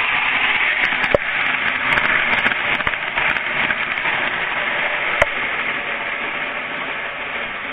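Postwar Santa Fe diesel model train running along the track: a steady whirring rush of motor and wheels, with a few sharp clicks.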